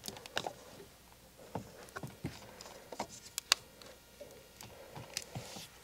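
Scattered light clicks and soft taps of handling as a round plastic battery-monitor display is pressed and fitted into a car's dash panel, with one sharper click about three and a half seconds in.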